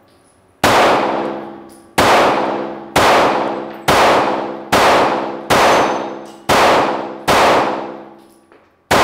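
Ruger Security 9 Compact 9mm pistol firing nine shots of Federal Syntech about a second apart, the last near the end. Each shot rings and echoes off the indoor range's walls as it fades.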